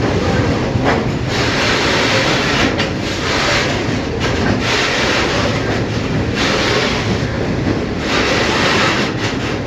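Freight train of cement wagons rolling through a station at speed: a loud, steady rumble of wheels on rail with clickety-clack and repeated brief dips as the wagons go by.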